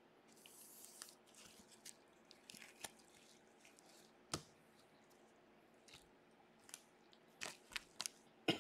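Faint, scattered rustles and soft clicks of baseball cards and foil Stadium Club card packs handled with gloved hands. There is a sharper tick about four seconds in and a cluster of small handling sounds near the end.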